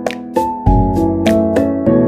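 Background music: keyboard chords over a steady light beat of about three ticks a second, with a deep bass note coming in just over halfway through.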